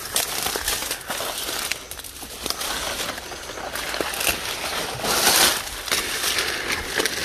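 Footsteps crunching through dry leaf litter while stiff saw palmetto fronds brush and rustle against the legs and hand, with a louder rustle about five seconds in.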